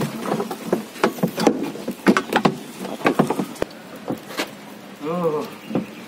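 A thin metal hook tool scraping and clicking against the plastic spin basket and rim of a twin-tub washing machine: a rapid string of sharp clicks and scrapes that stops about four and a half seconds in. The tool is fishing out clothing trapped under the spin basket, which had been slowing the basket's spin.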